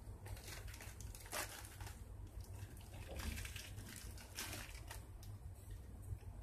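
Soft paper rustles and handling noises as hands work over a paper stencil: a few short scratchy rustles, the clearest about a second and a half and three seconds in, over a low steady hum.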